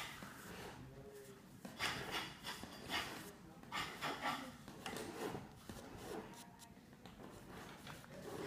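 Fingertips rubbing and smudging pigment on drawing paper: a series of soft, irregular swishes.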